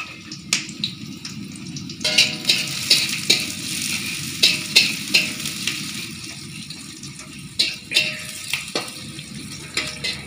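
Sliced shallots and garlic sizzling in hot oil in a steel wok, with a metal spatula scraping and clinking against the wok as they are stirred. The scraping gets busier about two seconds in, and some strikes leave the wok ringing briefly.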